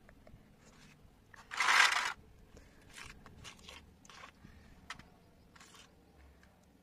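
A small spoon scraping and dabbing thick wet paste into a plastic mould. One loud scrape comes about a second and a half in and lasts about half a second, followed by several faint short scrapes and dabs.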